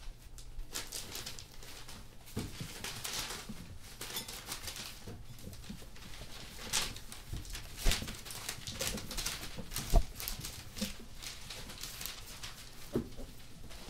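A litter of German Shorthaired Pointer puppies scrambling about: small paws and claws pattering and paper sheets rustling under them, in a steady scatter of little clicks and rustles. Two louder sharp knocks come a couple of seconds apart past the middle.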